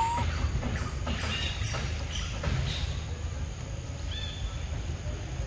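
Outdoor ambience: a steady low rumble with short high bird chirps, the clearest about four seconds in. Faint soft clicks come from a macaque biting and eating ripe fruit.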